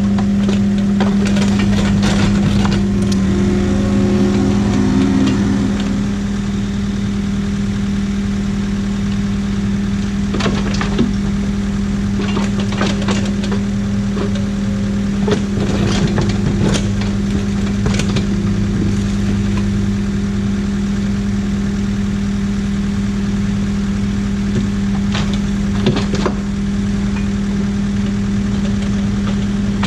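Excavator's diesel engine running steadily, with scattered sharp knocks and clatters from the bucket working earth and rock.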